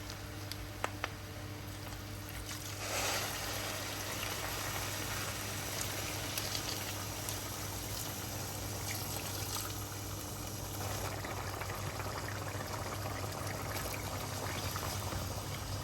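Hot boiling water being poured steadily into a pan of rice and lamb. A few light ticks come first, and the pouring starts about three seconds in and runs on.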